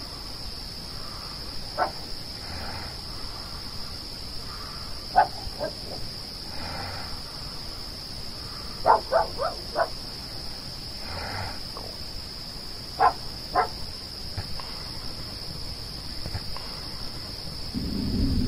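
Night insect chorus, a steady high-pitched drone, with short sharp calls from an unseen animal now and then, including four in quick succession about halfway through. Near the end the low rumble of a jet aircraft passing overhead starts to build.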